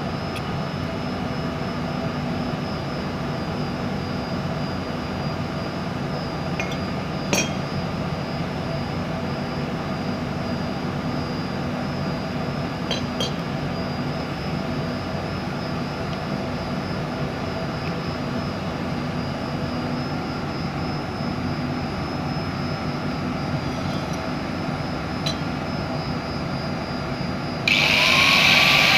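A steady background hum with a few light clicks. Near the end an angle grinder with a cutting disc switches on: its whine rises as the motor spins up, then settles into a loud, high running noise.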